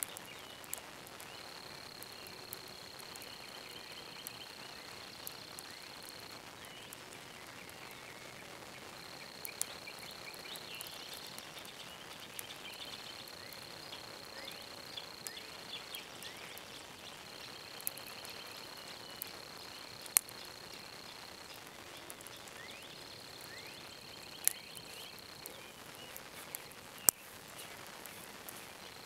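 An insect trilling in one high steady tone, in stretches of a few seconds with short breaks. Scattered sharp pops and crackles from the wood fire in a homemade stove, the loudest few in the second half.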